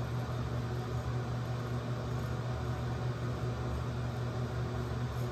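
Steady low mechanical hum with an even hiss.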